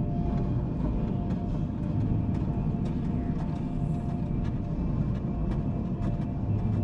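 Dark ambient drone: a steady, deep rumble with a sustained mid-pitched tone held over it and faint scattered clicks.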